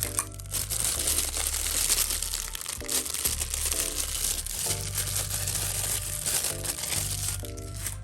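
Packaging crinkling and rustling as it is handled and opened, over background music with a repeating bass line.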